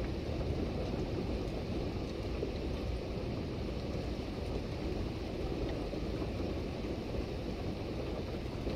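Steady rain falling: an even, dull hiss with its weight in the low end and a few faint drop ticks.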